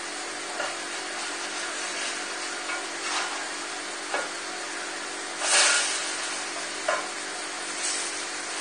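Plastic spatulas scraping and knocking on a griddle pan as a lentil burger is turned over, with the loudest scrape about five and a half seconds in, over a steady sizzle of frying.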